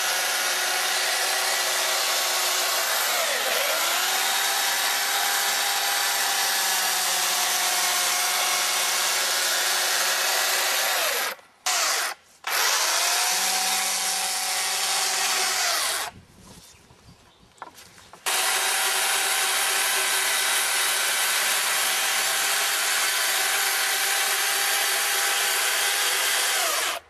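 Stihl electric chainsaw running and cutting along a round log, its motor whine dipping in pitch now and then. It stops briefly twice about halfway, is off for about two seconds, then runs again and cuts off near the end.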